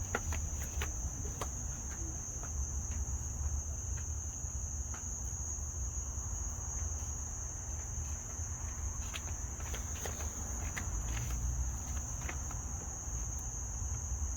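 Insects trilling steadily in one continuous high-pitched tone, over a low rumble, with a few scattered light clicks.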